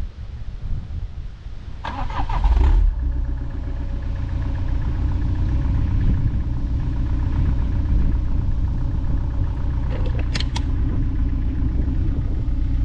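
Peugeot RCZ 2.0 HDi diesel engine starting about two seconds in, then idling steadily at the tailpipes. The exhaust has its DPF removed but is otherwise stock. A few short clicks come about ten seconds in.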